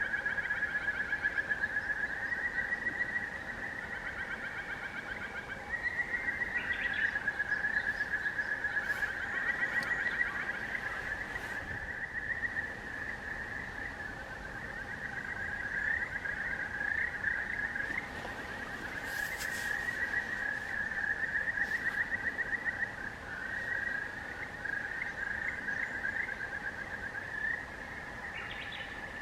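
Frogs trilling in a continuous overlapping chorus, a rapid high pulsing that rises and falls in strength. A few brief sharp high sounds come in about two-thirds of the way through.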